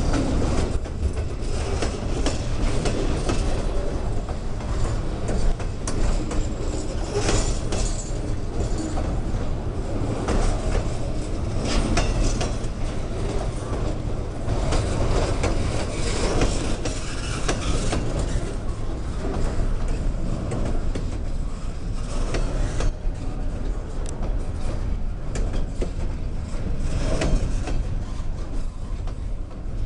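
Train rolling past at close range: a steady rumble with the wheels clicking over the rail joints again and again.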